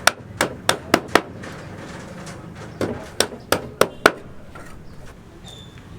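Two runs of sharp knocks: about five in the first second, then five more starting nearly three seconds in.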